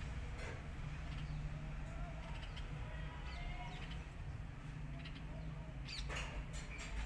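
Birds chirping and cooing in the background over a steady low rumble, with a louder brief call near the end.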